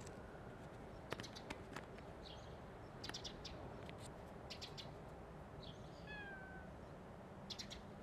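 A black-and-white cat gives one short, slightly falling meow about six seconds in. Faint clusters of brief sharp high clicks come and go around it, the loudest about a second in.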